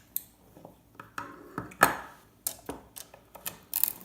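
A metal hand tool clicking and scraping against an electronic circuit board while prying a small chip off it. The clicks are irregular, with the loudest a little before halfway.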